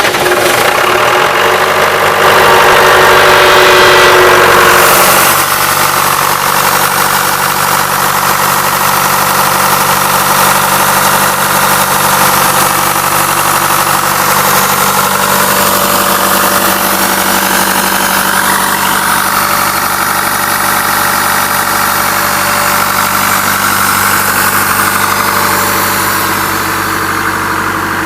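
Diesel engine of an Atlas Copco 250 CFM towable air compressor running just after starting. It is a little louder for the first few seconds, then settles about five seconds in to a steady idle.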